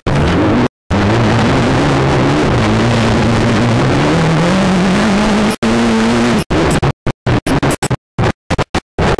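Mitsubishi Evo's engine in an off-road race sedan under hard acceleration, its pitch climbing steadily a few seconds in, over heavy wind and gravel noise in the cabin. The sound cuts out completely once early on and then in a rapid series of short gaps near the end.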